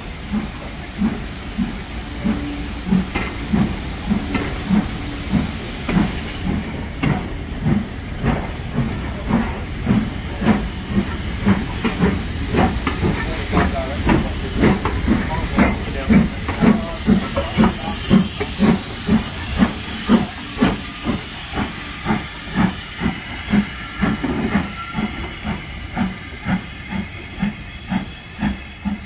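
LMS Fairburn 2-6-4T tank locomotive 42073, a two-cylinder steam engine, working slowly: a steady rhythm of exhaust chuffs about two a second over a continuous hiss of steam. The beats grow a little fainter near the end.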